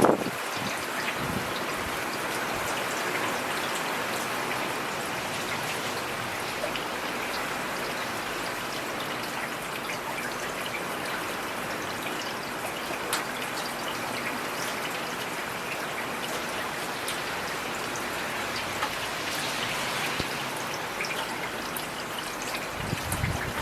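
Heavy rain falling steadily: a dense, even hiss with scattered sharp drop hits. A brief low rumble comes in near the end.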